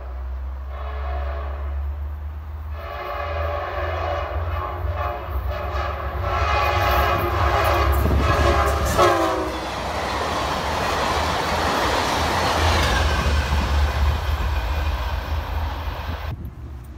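Diesel passenger train locomotive sounding its air horn in long blasts as it approaches, the horn's pitch dropping as it passes. The rumble and wheel clatter of the locomotive and passenger cars going by follows.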